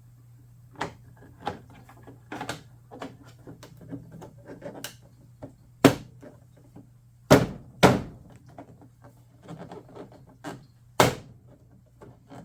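Plastic headlight lens being pressed and knocked into its opening in a John Deere L110 hood: a run of scattered clicks and knocks, four of them sharper and louder. The lens is not seating; its clip won't catch.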